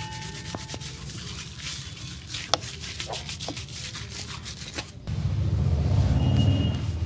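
Hands rubbing and scratching rapidly over hair and skin in a barber's head massage, with one sharp click partway through. About five seconds in the rubbing turns louder and heavier.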